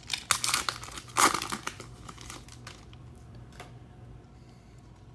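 Wrapper of a football trading-card pack being torn open and crinkled, crackling busily for the first two or three seconds, then dying down to faint rustling with a single click about three and a half seconds in.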